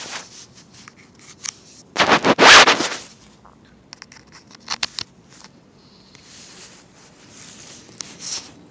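Handling noise on the recording microphone: a loud scraping rustle about two seconds in, then a few sharp clicks and softer rubbing as the mic and device are set up.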